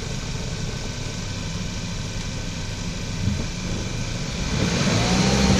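Volkswagen Golf Mk6 with its engine running, a steady hum that grows louder toward the end. A dull low clunk comes about three seconds in and a stronger one right at the end. It is the clunk this car makes when the brakes are applied, which the owner ties to the newly fitted brake pads and discs.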